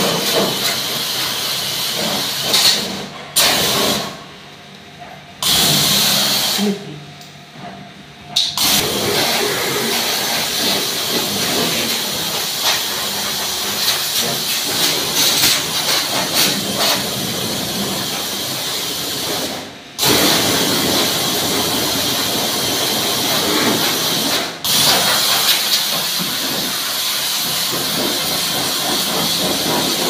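Pressure washer running, its jet hissing as it sprays water onto a window air conditioner's coil fins and fan housing. The spray stops and starts again several times, with two pauses of about a second and a half a few seconds in and shorter breaks later.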